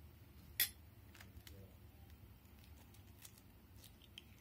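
An egg is struck against the rim of a ceramic bowl to crack it, one sharp click about half a second in. Faint ticks follow as the shell is pulled apart.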